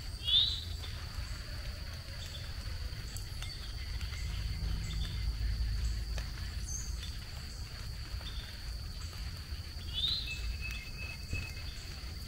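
Rural outdoor ambience: a steady high-pitched insect drone with low rumble underneath, and two short rising bird chirps, one just after the start and one about ten seconds in.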